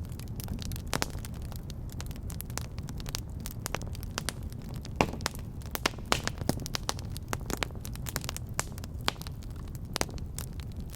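Wood fire burning in a fireplace: irregular sharp crackles and pops over a steady low rumble of the flames, with the loudest pop about five seconds in.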